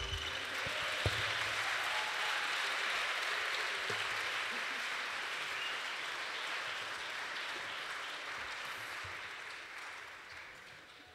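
Audience applauding in an auditorium as a piece of music ends, the clapping fading away over the last few seconds.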